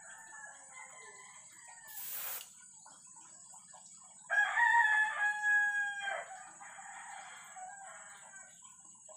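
A rooster crows, one long loud call starting about four seconds in, with the end of a softer crow at the start. About two seconds in, an airbrush gives a short hiss of spray.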